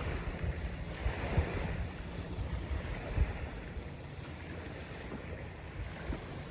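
Wind buffeting the microphone outdoors: an uneven low rumble with irregular soft thumps.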